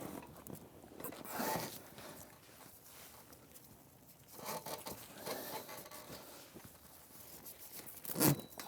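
A tarp and clothesline rope being handled and pulled tight, making rustling and zipping scrapes in several short bouts.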